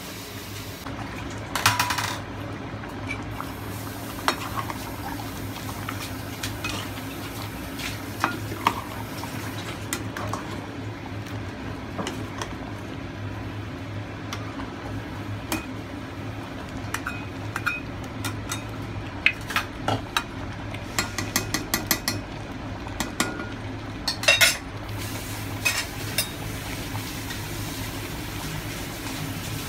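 A metal ladle clinking and scraping against a steel pot while stirring a simmering stew, with scattered clinks, a louder clatter about two seconds in, and a busy run of clinks in the second half. A steady low hum runs underneath.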